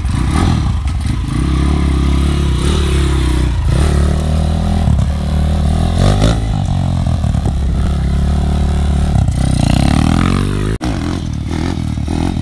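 Pit bike engine revving hard and easing off several times as it is ridden, its pitch climbing and falling in repeated surges.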